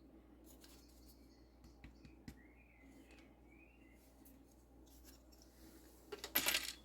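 Faint handling of a Roomba's plastic wheel module, with a few small clicks, then a short, louder scrape of plastic rubbing near the end.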